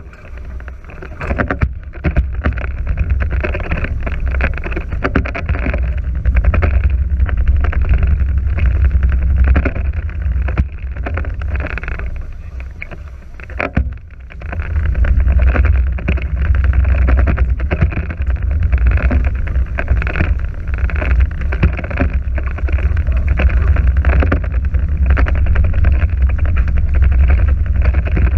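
Wind buffeting the microphone over the hiss of water rushing past the hulls of a Nacra 5.0 beach catamaran under sail. The noise eases about halfway through, then picks up again.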